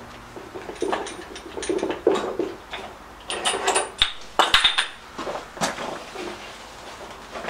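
Hammer blows on the cast-iron Lister LR1 diesel, knocking at the seized engine to free it. The blows come as an irregular series of sharp metallic knocks, some with a brief ring, and they thin out near the end.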